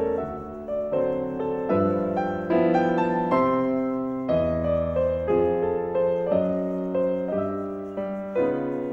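Background piano music: slow notes and chords, each struck and left to ring and fade.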